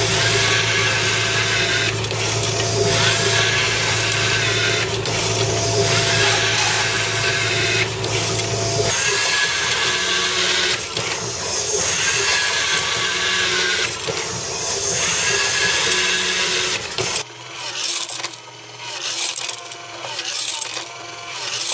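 Robotic automatic screwdriver fed by a Quicher NJR screw feeder, driving screws one after another: its motor whirs in repeated cycles about every two seconds over a steady machine hum. Near the end this gives way to a quieter, uneven mechanical rattle from the feeder.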